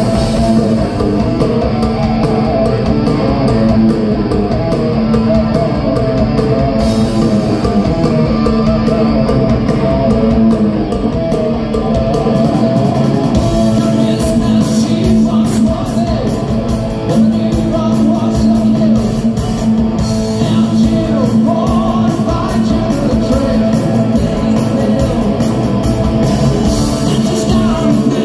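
Hard rock band playing live: distorted electric guitars through Marshall amplifier stacks, bass and drums, with a singer's vocals, heard from within the audience.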